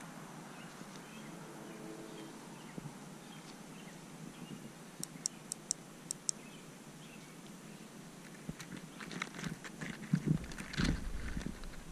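Faint outdoor background hiss, with a quick run of five high ticks about halfway through. In the last few seconds, rustling and small knocks of grass brushing against a handheld camera grow louder.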